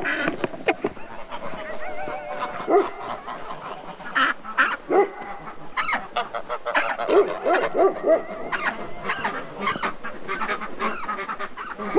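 A flock of domestic geese honking repeatedly in short calls, often several in quick succession, with one longer drawn-out call about two seconds in. The geese are agitated.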